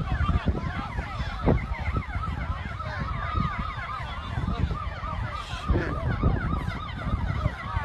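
Several emergency sirens sounding at once, their quick rising-and-falling tones overlapping, over a loud low rumble.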